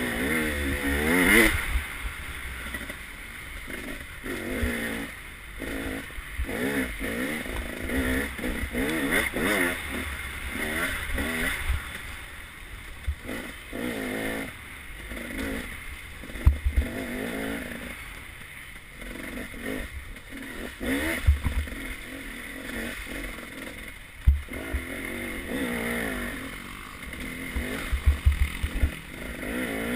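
Off-road dirt bike engine revving up and down over and over while ridden hard over rough ground, with sharp knocks now and then.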